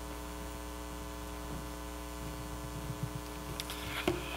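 Steady electrical mains hum, a low buzz with many overtones. Near the end come a few faint knocks and a soft rustle as a man handles a book at the wooden lectern.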